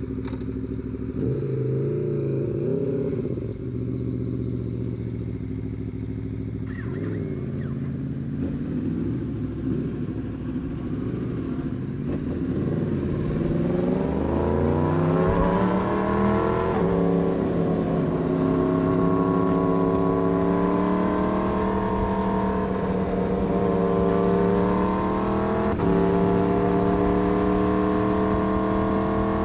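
Yamaha MT-10's crossplane inline-four idling with a short blip of the throttle, then pulling away. Its pitch climbs as it accelerates, with two sudden pitch changes at gear shifts, about halfway through and near the end.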